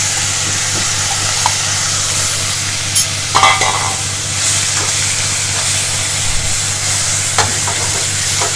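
Coarsely ground onion sizzling in hot oil in an aluminium kadai as it is stirred with a metal spatula, with a few sharp clinks of metal on metal, a cluster of them about three seconds in.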